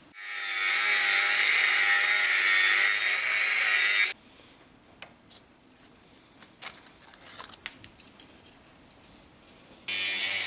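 Angle grinder grinding steel. It comes up to speed, runs steadily for about four seconds and cuts off suddenly. Light metal clinks follow as the steel pieces are handled, and the grinder starts again near the end.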